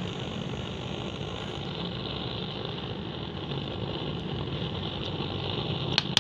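Steady motor drone with a low hum, like an engine idling, and a single sharp knock near the end.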